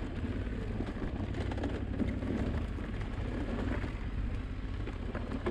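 Yamaha Ténéré 700's parallel-twin engine running steadily under way on a gravel track, with wind and tyre noise.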